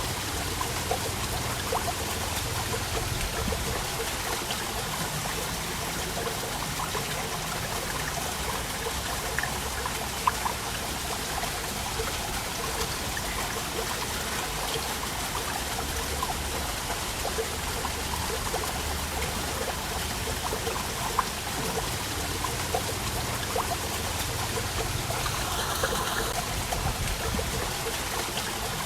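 Waterfall: a steady rush of falling and running water, with many small splashes and drips scattered through it.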